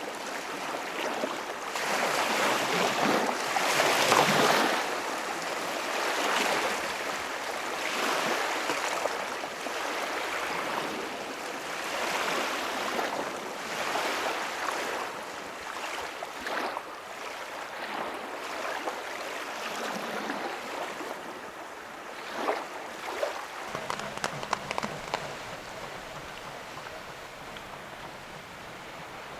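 Small lake waves washing onto the shore, the wash swelling and fading about every two seconds, with a few sharp clicks near the end.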